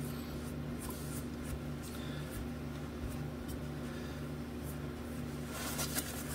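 Paper towel rubbing and pressing over a wet vinyl decal on a guitar headstock, soft scratchy wiping strokes, with a denser stretch of rubbing near the end. A steady low hum runs underneath.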